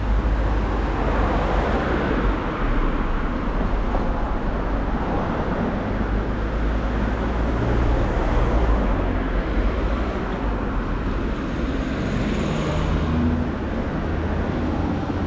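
Street traffic: cars going by on a city street, a steady road rumble that swells as vehicles pass, once near the start and again about three-quarters of the way through.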